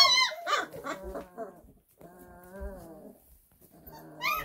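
20-day-old Great Dane puppies whining and whimpering: a few short high-pitched cries at the start, then softer, lower whimpers, with one longer whimper about two seconds in.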